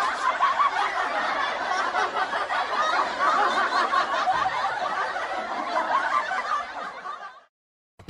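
Laughter as a sound effect: one long stretch of continuous cackling that stops suddenly about seven seconds in.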